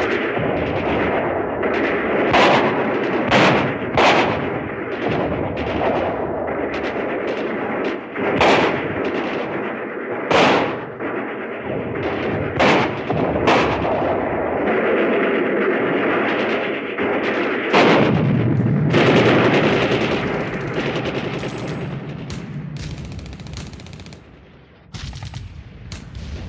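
Battle sound effects: gunfire and explosions, with many sharp shots over a continuous rumble. A steady roar comes through in the second half, and a rapid machine-gun burst rattles near the end.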